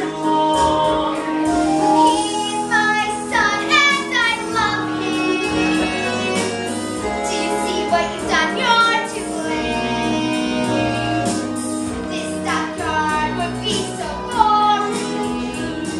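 Young performers singing a musical-theatre song over instrumental accompaniment, the melody moving and gliding through held notes.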